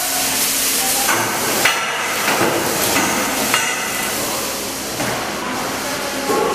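Milking-parlour equipment: a steady hiss of air with about half a dozen sharp metallic clanks that ring briefly, mostly in the first four seconds.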